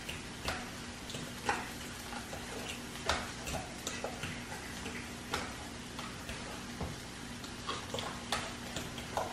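Food frying in a pan on the stove: irregular sharp pops and crackles, about one or two a second, over a faint hiss and a low steady hum.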